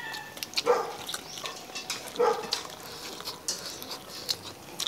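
A dog barking twice, about a second and a half apart, amid the small clicks and smacks of people eating with their hands.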